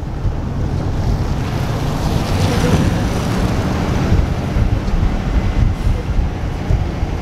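Wind rushing over the microphone along with the road and engine noise of a truck on the move.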